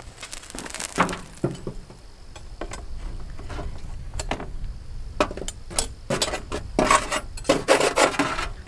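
Metal tongs clinking and scraping against a charcoal chimney starter as hot charcoal briquettes are picked out and set on a cast-iron Dutch oven lid, a string of sharp clicks that gets busiest near the end. Wind rumbles on the microphone underneath.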